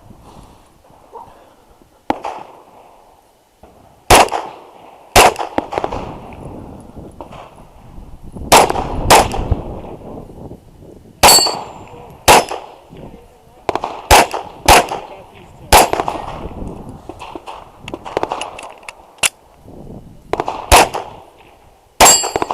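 Pistol shots from a 9mm Glock 34 fired through a USPSA stage: about a dozen shots at uneven spacing, several in quick pairs. Some are followed by the ringing clang of hit steel targets.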